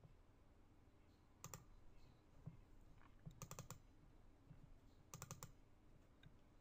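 Faint clicking of a computer mouse button: one click about a second and a half in, then two quick runs of double clicks.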